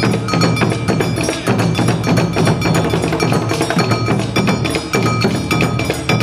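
Awa Odori festival music played live on the street: taiko drums beating a steady, driving rhythm with the quick, ringing clang of a kane hand gong over it.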